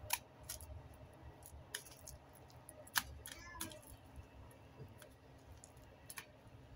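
Chicken pieces being pressed and turned in breadcrumbs in a stainless steel bowl: scattered light clicks and knocks of fingers and meat against the metal, with one sharper knock about three seconds in.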